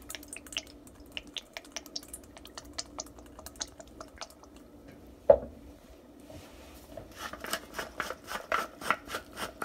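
Maggi seasoning sauce being shaken out of its bottle into a stainless steel mixing bowl, a scatter of small ticks and drips. There is a single sharp thump about five seconds in, and near the end a fast run of rasping clicks.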